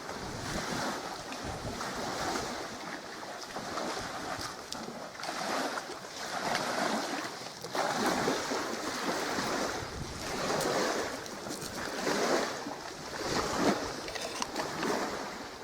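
Small waves washing against the shore in uneven swells every second or two, with wind noise on the microphone.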